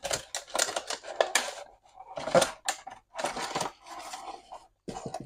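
A cardboard retail box being opened by hand, with irregular scraping, rustling and clicking of the packaging.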